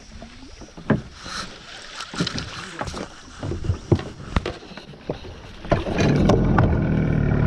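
Knocks and thumps against a small boat's hull, scattered every half second or so. About six seconds in, a louder, steady mechanical whirr starts.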